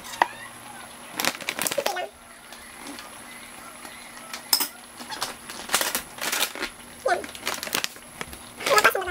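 Scattered short crinkles and knocks as a stand-up plastic-lined pouch of xylitol is handled and a metal spoon scoops from it, with a few quick taps close together about six seconds in.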